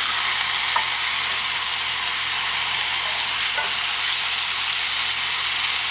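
Marinated skirt steak sizzling steadily in a hot cast-iron grill pan.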